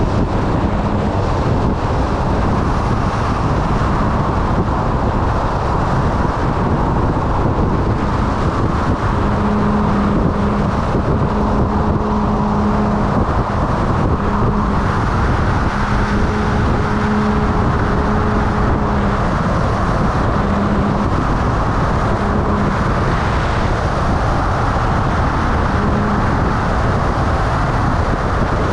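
Motorcycle on the move: a steady loud rush of wind and road noise, with a low steady hum that breaks in and out through the middle.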